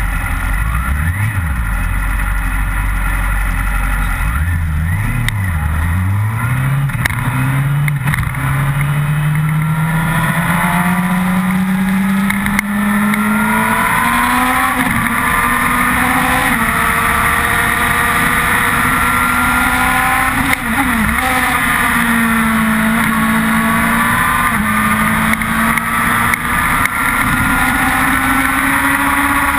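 Yamaha R6 inline-four sport bike engine heard on board, pulling away and revving up through the gears over the first ten seconds or so. It then runs at high revs with a few sharp drops in pitch, and climbs again near the end, all under heavy wind rush.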